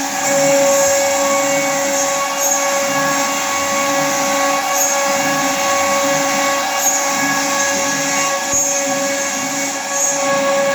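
CNC router running: the steady whine of its high-speed spindle motor over a dense noisy rush, with no break.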